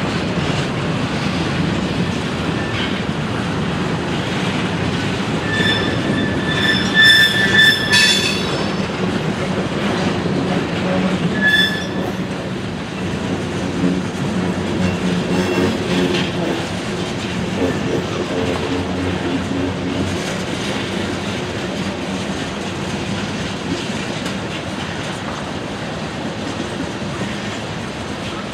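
Freight cars of a long train rolling past, wheels clacking over rail joints with a steady rumble. Brief high-pitched wheel squeals come about six to eight seconds in and again around eleven seconds.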